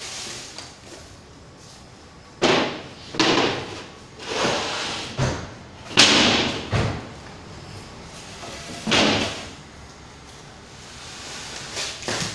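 Bed base boards being laid into a wooden single-bed frame and knocked into place: a series of wooden thuds and slams, the loudest about six seconds in.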